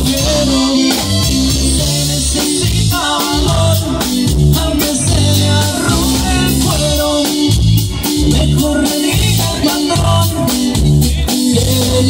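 Live norteño band playing a corrido: Gabbanelli accordion, bass and drums, with a man singing lead into the microphone.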